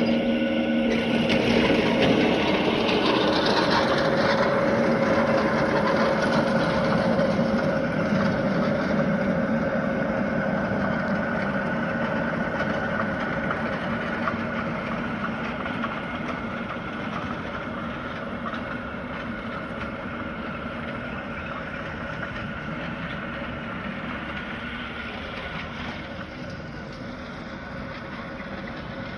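Lawn mower engine running steadily. It is loudest in the first few seconds, then grows gradually fainter through the rest.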